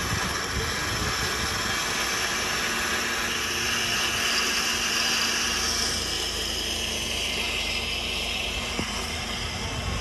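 A vehicle engine running steadily close by, a low pulsing rumble under a loud, even hiss.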